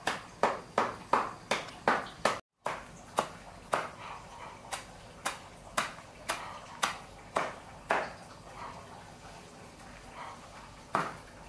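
A cleaver chopping a pile of fresh leafy greens on a sack laid over a concrete floor, in sharp, even chops. They come about three a second at first, then about two a second after a brief dropout, and stop for a few seconds before one more chop near the end.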